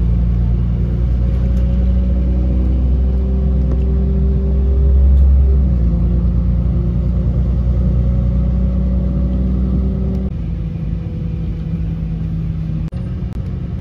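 Engine of a 4000 class diesel multiple unit running under power, heard from inside the carriage as a steady low drone with rumble. Its note shifts about halfway through, and the deepest part of the drone falls away about ten seconds in.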